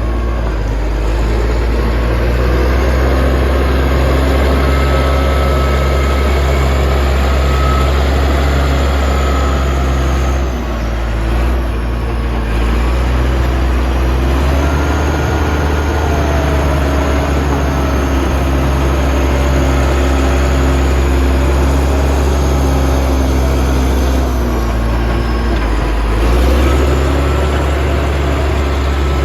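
Bulldozer's diesel engine running steadily while working, its pitch sagging and recovering twice: about ten seconds in and again near the end.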